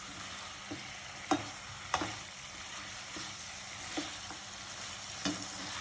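Masala sizzling in a hot pan as fried chicken pieces are stirred into it, the spoon knocking against the pan several times.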